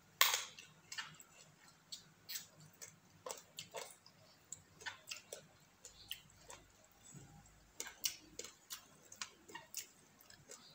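Close-up chewing of snakehead-fish dip eaten by hand: irregular wet mouth clicks and lip smacks, a few each second, the loudest just after the start.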